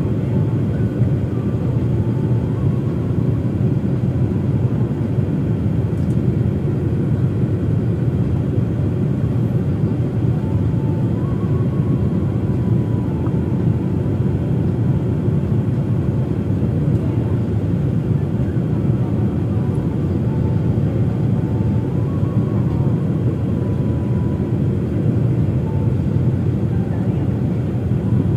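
Jet airliner cabin noise heard from a window seat beside the engine during the landing approach: a steady, dense rumble of engine and airflow. A faint whine rides on top, shifting slightly up and down in pitch a few times.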